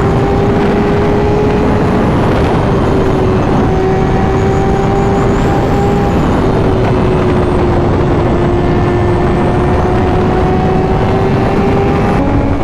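Honda CBR1000RR-R Fireblade SP's inline-four engine running at a steady highway cruise, its pitch holding nearly level, under heavy wind rush on the helmet microphone. Near the end the engine pitch drops.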